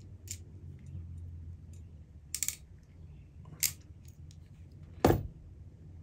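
Ratcheting crimp tool clicking as its handles close on a solid size-16 Deutsch terminal: a few separate clicks, a quick run of ratchet clicks about two seconds in, and one louder snap about five seconds in.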